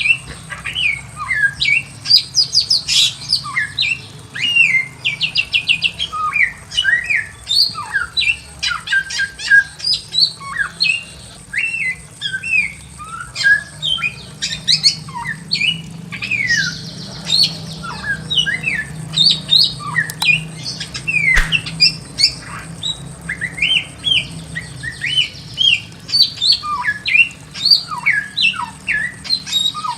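Bare-throated whistler (samyong) singing a long, busy song of short sliding whistles and chirps, several notes a second, with a quick rattling run of repeated notes about three seconds in.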